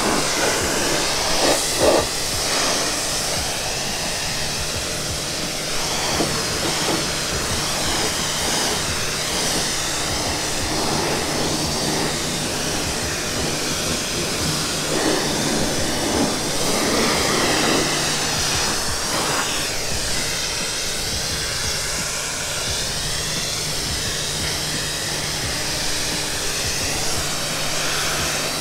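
Pressure washer spraying water onto a car's body: a steady hiss of the spray over a constant low hum.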